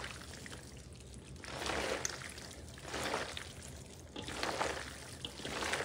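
Gloved hands tossing and folding pasta salad with flaked trout in a stainless steel bowl, a wet mixing sound that swells about four times, a little over a second apart.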